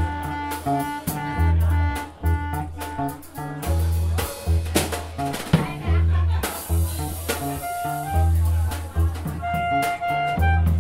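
Live improvised jazz-style jam of electric bass guitar, drum kit and a woodwind. The bass plays repeated low notes, the drums and cymbals strike in rhythm, and the woodwind holds longer melodic notes, most clearly near the end.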